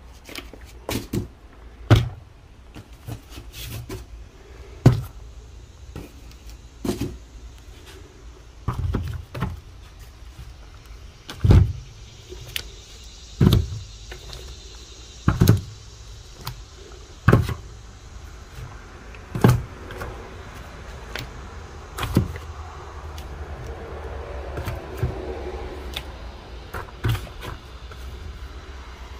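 Cardboard firework cake boxes knocking and thumping as they are handled and set down, about one knock every two seconds, over a steady low hum.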